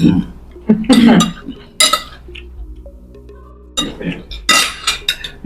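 Cutlery clinking against plates during a meal, with a low background music drone under it.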